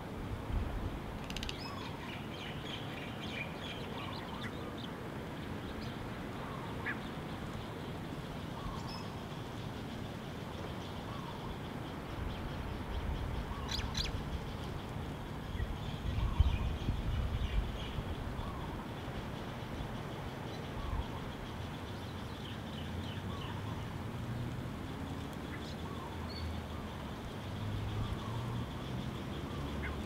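Birds calling: a short low call repeats every second or two, with scattered higher chirps over it. A low rumble rises about halfway through.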